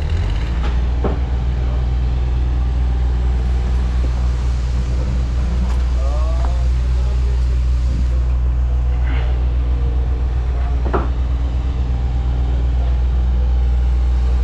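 Steady, loud low rumble of a running motor vehicle engine, with a few faint knocks over it.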